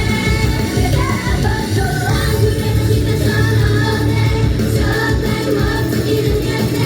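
Live idol-pop song played loud through a venue PA, with female voices singing over a heavy bass beat.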